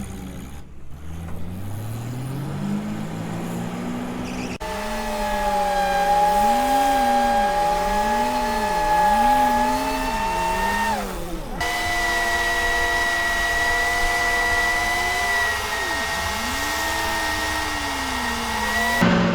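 Tracked over-snow vehicle driving: a steady drivetrain whine over an engine whose pitch rises and falls again and again as the throttle changes. The sound jumps abruptly between segments several times.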